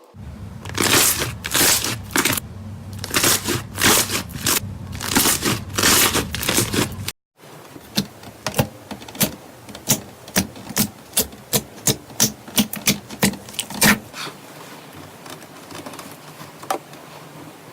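Slime being squeezed and poked by hand: a run of pops about two a second, then after a brief cut a quicker, sharper series of clicking pops that thins out to a few faint clicks near the end.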